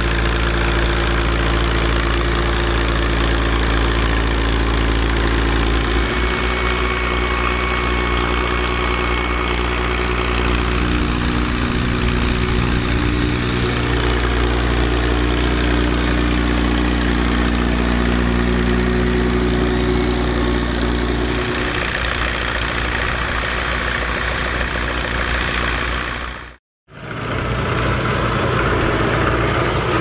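Fiat 615 DT tractor's diesel engine running steadily under load while pulling a three-furrow plough. Its note shifts slightly a couple of times, and the sound drops out briefly near the end before the engine is heard again.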